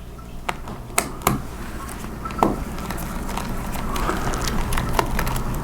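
Small sharp clicks and taps of a screwdriver and tiny screws being handled on a laptop's underside during battery screw removal, a handful spread out with pauses between, over a steady low hum.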